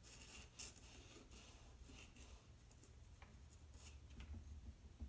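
Faint, irregular scratching of a white charcoal pencil sketching strokes on black drawing paper.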